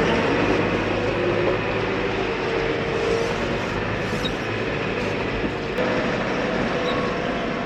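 Engine of heavy farm machinery running steadily at a constant speed.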